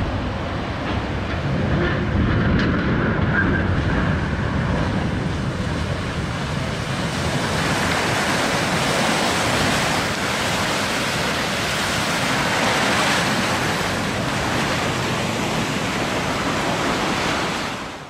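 Launch wave from a cargo ship's side launch rushing across the river and washing over the bank, a steady churn of water with wind on the microphone. The rush grows broader and hissier from about seven seconds in as the water floods the bank, and cuts off suddenly at the end.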